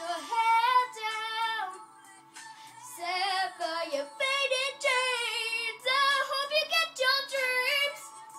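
A young girl singing solo over a backing track, with a short break between phrases about two seconds in.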